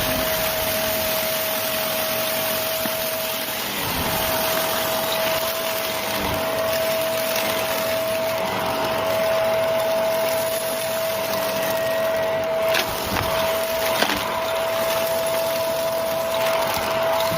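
Shark Rotator upright vacuum cleaner running: a steady motor whine over a rushing airflow hiss, briefly dipping about four seconds in, with two sharp knocks later on.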